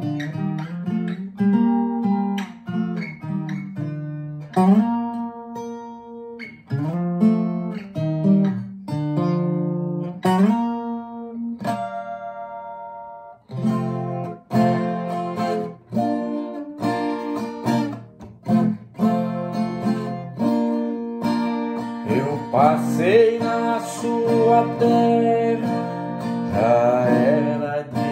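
Nylon-string classical guitar played fingerstyle, a run of plucked melody notes and chords, with a brief pause near the middle.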